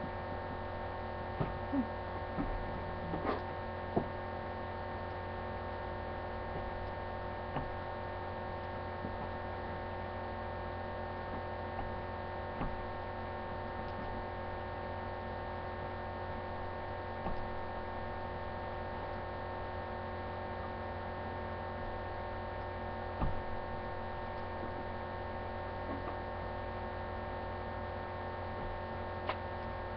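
Steady electrical mains hum made of several fixed tones at a constant level, with a few faint short taps scattered through it.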